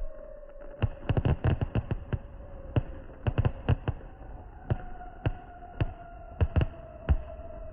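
Fireworks going off: a quick run of sharp bangs about a second in, then single bangs and pairs every half second or so. A faint steady tone runs underneath.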